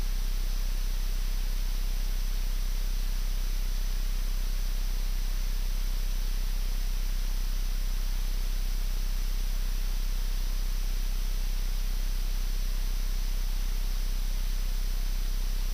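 Steady hiss with a constant low hum: cockpit noise of a Challenger 300 with both Honeywell HTF7000 turbofans idling just after start.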